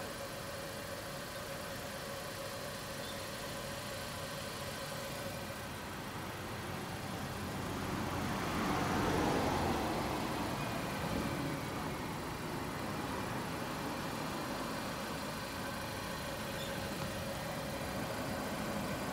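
A car engine runs steadily with a general traffic hum. It swells louder for a few seconds around the middle, then settles back.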